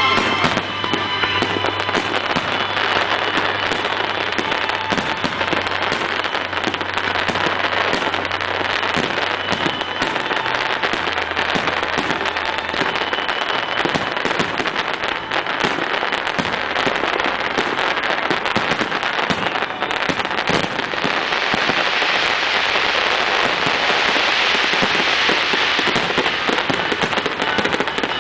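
Fireworks display: a continuous, rapid barrage of shell bursts and bangs with crackling, which thickens into a dense crackling hiss in the last third.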